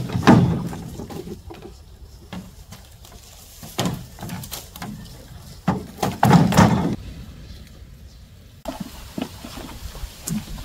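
Scattered knocks and dull thumps, like things being handled and set down, with the loudest cluster of thumps a little past halfway.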